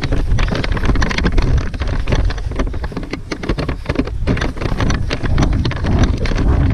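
Wind buffeting the microphone in a steady low rumble, with many scattered clicks and rustles throughout.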